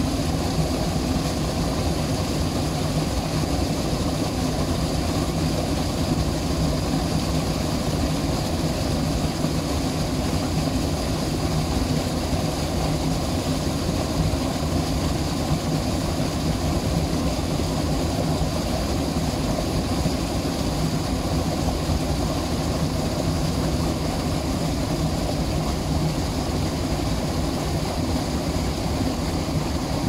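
Small stream rushing and churning as white water down a stone-lined channel: a steady, unbroken rush with a deep low rumble.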